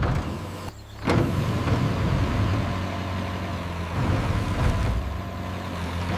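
Excavator's diesel engine running with a steady low hum as the boom swings. The sound dips briefly just before a second in and comes back louder, with a few short sharp sounds over it.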